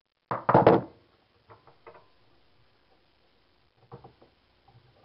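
A quick cluster of loud wooden knocks and clatters about a third of a second in, then a few faint taps, near two seconds and near four seconds: wood and tools being handled.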